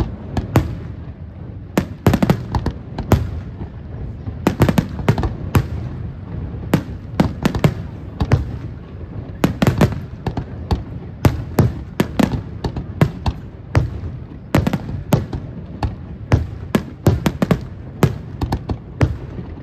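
Aerial fireworks shells bursting: sharp bangs in rapid, irregular clusters, a few a second, over a steady low rumble.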